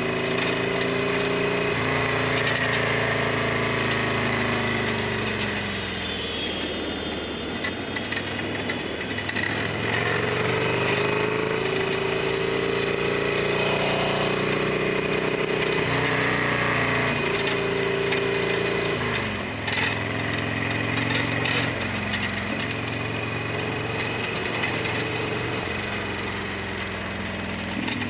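Harley-Davidson Sportster 1200's air-cooled V-twin engine running while riding, its pitch climbing and dropping several times with sudden steps between, as it is revved up through the gears and eased off.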